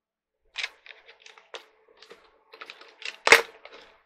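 Hands handling objects on a desk top: irregular clicks and taps, with one louder knock a little past three seconds in.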